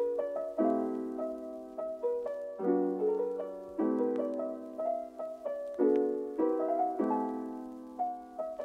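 Background music: a solo piano playing a gentle melody over chords that change about once a second, each note struck and fading.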